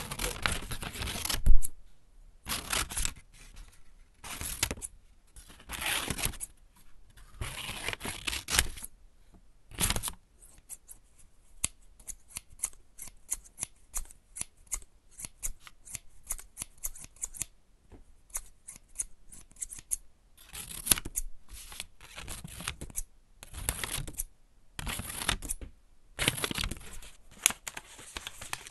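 Scissors cutting paper: long sliding cuts of about a second each, then through the middle a run of quick short snips, several a second, before the long cuts return.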